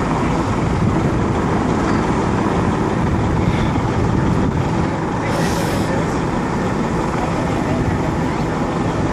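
Steady low rumble of idling road vehicles, with a short hiss about five and a half seconds in.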